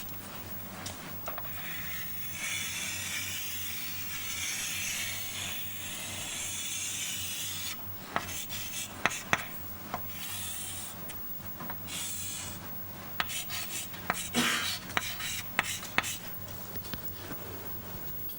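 A pen drawing a diagram: a long scratching hiss of continuous strokes, then short strokes and taps, over a steady low electrical hum.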